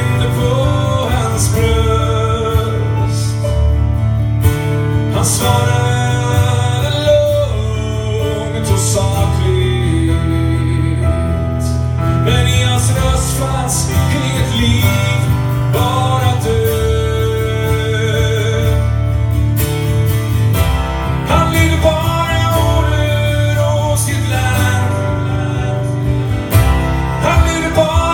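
A man singing a ballad in Swedish, accompanying himself on a strummed acoustic twelve-string guitar.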